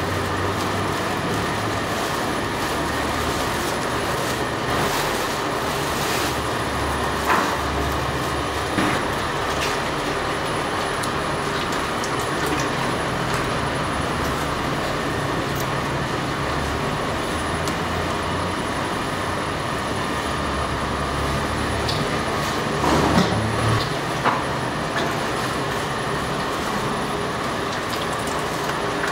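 Electric bakery dough-kneading machine running steadily, its motor and hook churning flour and water in the steel bowl during the early kneading stage. A few short knocks stand out about seven, nine and 23 seconds in.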